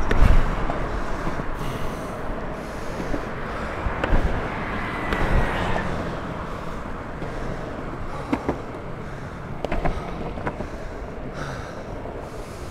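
Longboard wheels rolling over rough asphalt: a steady rumbling hiss with a few sharp clicks along the way.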